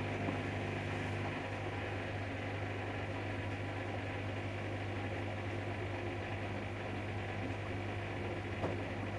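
Samsung Eco Bubble washing machine running a bedding cycle: a steady low motor hum with a noisy whir over it, and a faint tap near the end.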